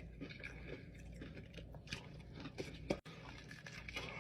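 A person chewing crispy fried chicken skin, with small irregular crunches and a sharp click about three seconds in.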